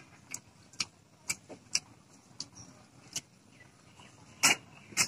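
Eating sounds from a person eating rice and egg curry by hand: irregular sharp smacks and clicks of chewing, roughly one every half second, the loudest about four and a half seconds in.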